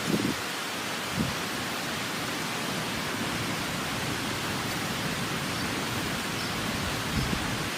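Steady, even rushing of water with no pauses, and two faint knocks, one about a second in and one near the end.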